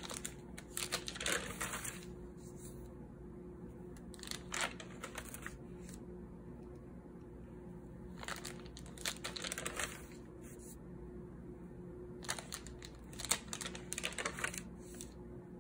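Paper pages of a spiral-bound notebook being turned by hand, rustling and crinkling in four bursts a few seconds apart, over a faint steady hum.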